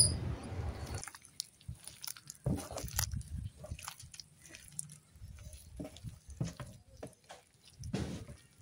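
Hands mixing and kneading a moist heap of ground spice paste and rock salt on a metal tray, in soft, irregular strokes with short pauses.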